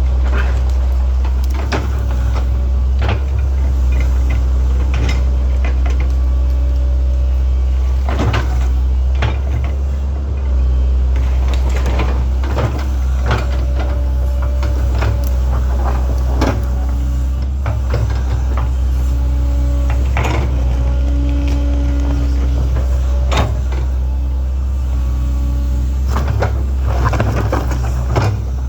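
Link-Belt 2700 excavator running steadily at working speed, its engine a deep unbroken drone, with frequent irregular clanks and knocks as the machine digs and moves rock and soil. A humming tone comes and goes over the middle of the stretch.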